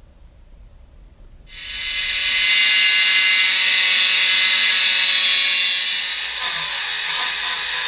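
A handheld power tool spins up about a second and a half in and cuts into rusted, filler-covered old body metal with a loud, steady, high-pitched whine and grinding hiss, easing slightly near the end.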